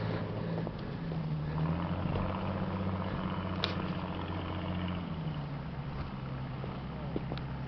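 An engine running steadily at a low, even hum, its pitch dropping a little about five seconds in, with a brief sharp click in the middle.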